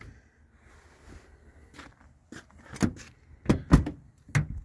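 Wooden smokehouse door being handled and opened: a quiet stretch, then a series of sharp knocks and clunks in the second half, five or so, the loudest about three and a half seconds in.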